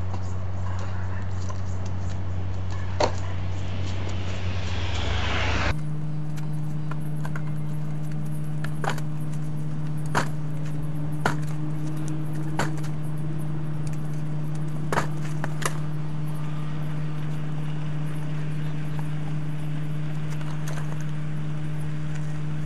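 Steady low hum over a hiss, with a handful of sharp clicks scattered through. About six seconds in the hum changes abruptly to a different pitch.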